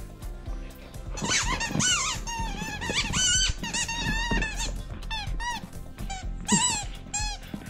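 Rubber chicken squeaky toy squealing over and over as a husky puppy bites and squeezes it, starting about a second in, with short squeals that rise and fall.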